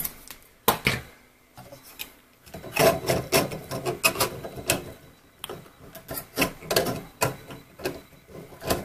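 3D-printed plastic laser-head mount with its finned cooler being slotted onto the CNC axis carriage by hand: a run of irregular plastic clicks, knocks and rubbing.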